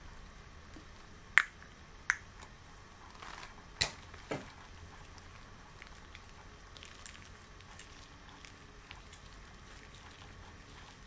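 Extra-long latex gloves being handled: four sharp snaps of the latex in the first half, then faint rustling and small crackles of the rubber.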